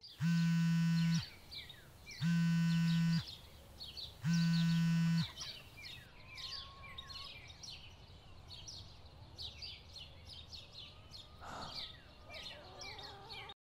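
Smartphone alarm going off as a low buzz: three one-second buzzes about two seconds apart, the phone vibrating against a wooden surface. Birds chirp throughout.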